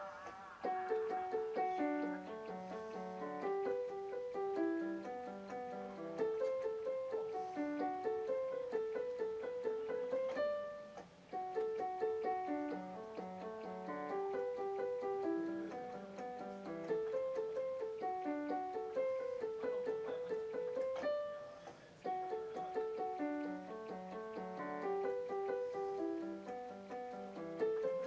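Electronic keyboard played in a piano voice: a melody over low bass notes, the same phrase coming round three times with two brief breaks in between.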